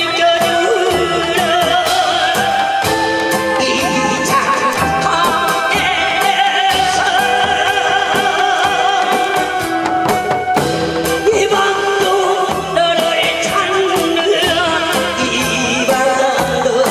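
A singer with a wavering vibrato voice sings an old Korean popular song into a microphone through a PA, over loud amplified accompaniment with a steady drum beat.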